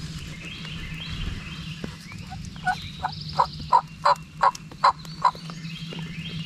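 A series of about eight wild turkey yelps, evenly spaced and rising a little in pitch, with faint songbird chirps and a steady low drone behind.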